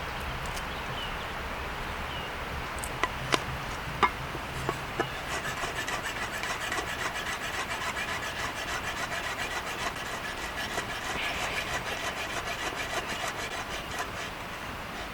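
A few sharp knocks, then a steady run of rhythmic scraping strokes, about three a second, like something being rubbed or sawed back and forth against wood.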